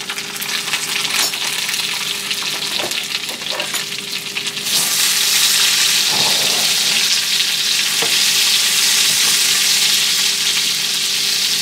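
Sliced onions and red bell pepper sizzling in hot olive oil in a cast iron skillet, stirred with a wooden spatula. The sizzle gets clearly louder about five seconds in.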